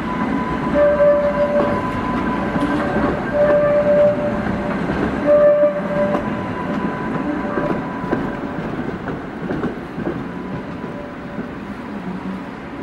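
Tatra T5C5 trams rolling past on rails: rumble and clatter of the wheels, with a high wheel squeal sounding four or five times, each for half a second to a second, in the first half. The rumble fades toward the end as the trams move away.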